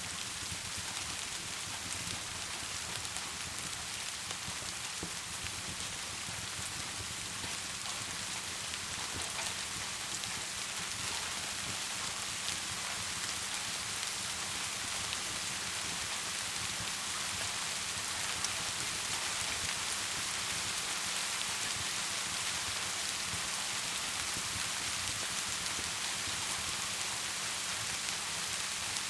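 Steady rain with a crackling wood fire: an even hiss of rain, dotted with small sharp crackles.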